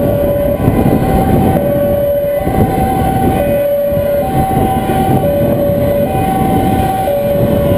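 Dutch two-tone emergency siren alternating between a low and a high note, each held about a second, about four times through. Underneath is the steady rumble of engine and road noise inside a fire engine's cab at motorway speed.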